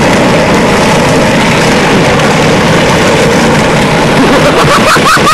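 Loud steady vehicle noise from a truck driving through snow while towing a Power Wheels 4x4 ride-on toy by rope. A shout breaks in near the end.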